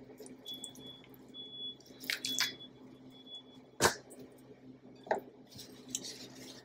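Wet mustard-marinated chicken pieces lifted with a gloved hand and dropped into a bowl of seasoned flour: a few soft wet squishes and plops, with one sharp tap about four seconds in.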